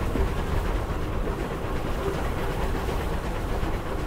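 Steam train hauled by Bulleid Battle of Britain class Pacific 34053 Sir Keith Park, heard from on board the train: a steady running rumble of wheels on rails.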